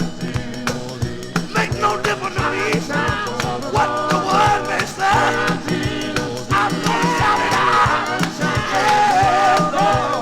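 1950s gospel quartet recording: male voices singing with a steady beat of light percussion, rattle or tambourine-like, and backing instruments.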